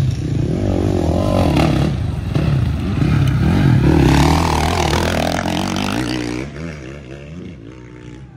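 Off-road dirt bike engine revving up and down as the bike rides past close by on a dirt track. It is loudest about four seconds in, then fades away after about six seconds.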